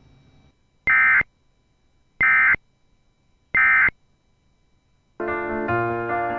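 Emergency Alert System end-of-message data tones: three short, identical bursts of shrill digital screech about a second apart, marking the end of the alert. About five seconds in, piano music starts.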